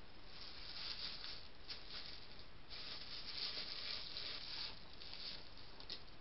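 Hedgehogs scuffling on concrete: a curled-up hedgehog is pushed and rolled about. Several rustling, scraping bursts come and go, the longest about two seconds long near the middle.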